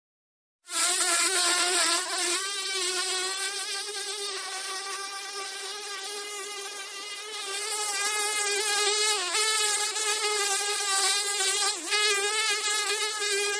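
Close-up buzz of a flying insect, given as a house fly: a steady, slightly wavering drone that starts suddenly about half a second in, with brief dips in pitch twice in the latter half.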